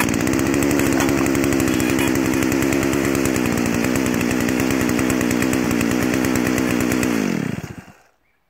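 Farm Boss 034 two-stroke chainsaw starting at once on a kick of a homemade foot-operated kickstarter and running at a steady pitch for about seven seconds. It then slows, dropping in pitch, and stops.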